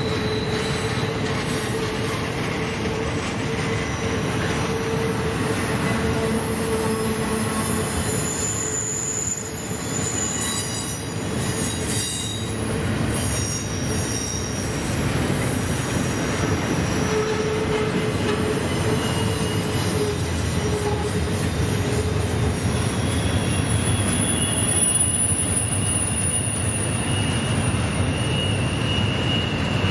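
Norfolk Southern intermodal freight train's cars rolling through a sharp curve, a steady low rumble with wheel flanges squealing against the rails. The squeal is a shifting set of high-pitched whines that come and go, alongside a steady lower tone.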